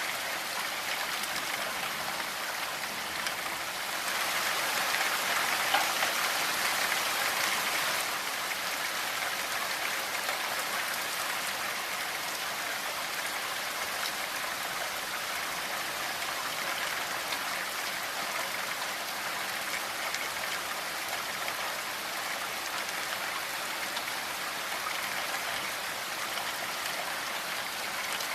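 Steady rainfall, an even hiss of falling drops, heavier for a few seconds starting about four seconds in.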